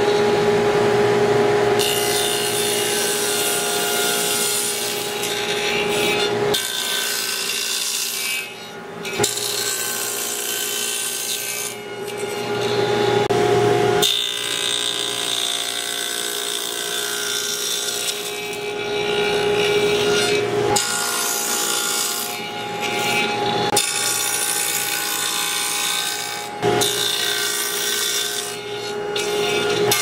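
Table saw running with a steady hum and cutting wood fed across it on a crosscut sled, the sound breaking off and resuming abruptly several times.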